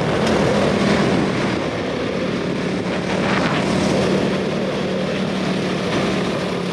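A motor vehicle engine running with a steady drone.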